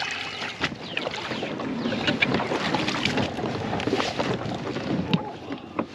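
Water sloshing and splashing against a fishing kayak, with many small sharp splashes and wind on the microphone.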